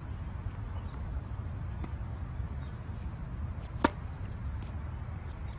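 A tennis racket striking the ball on a serve: one sharp crack a little under four seconds in, over a steady low rumble.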